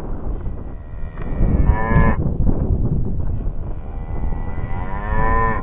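Cows mooing twice: a short moo about two seconds in and a longer moo near the end, over a steady low rumble.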